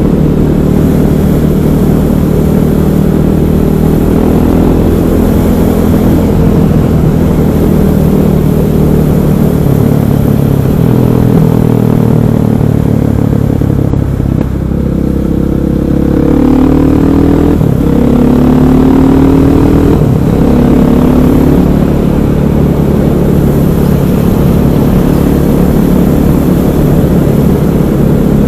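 KTM 500 EXC's single-cylinder four-stroke engine running at road speed, then, about halfway through, accelerating hard up through several gears, its rising pitch broken by a drop at each upshift, before settling back to a steady cruise.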